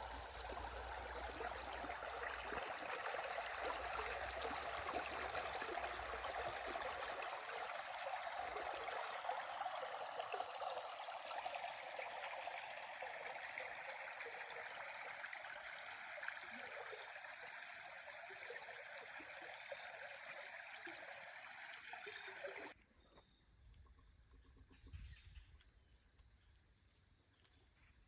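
Steady running water, like a small stream trickling, that cuts off abruptly near the end to a much quieter outdoor background with faint chirps.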